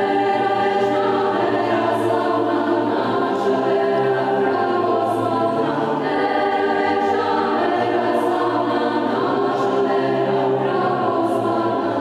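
Orthodox church choir singing in harmony, slow chords held for a second or two each.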